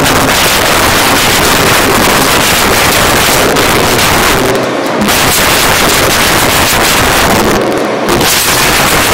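Loud steady rushing noise, like wind buffeting the microphone, that covers everything and drops away briefly twice, just before the halfway mark and near the end.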